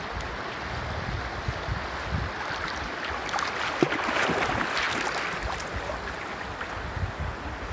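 River water rippling and splashing right at a waterline microphone as a dog swims through it. The splashing grows louder from about three to five seconds in, with a few sharp splashes, as the dog paddles right alongside.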